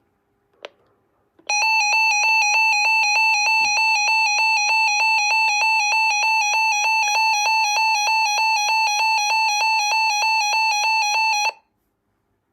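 Reecom R-1650A weather alert radio sounding its alert siren test: a shrill electronic alarm tone that pulses about four times a second. It starts just after a click and cuts off abruptly about ten seconds later.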